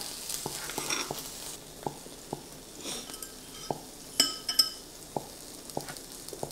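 Beef and garlic sizzling in a grill pan on a tabletop burner, with scattered small crackles. A couple of light clinks of tableware sound about four seconds in.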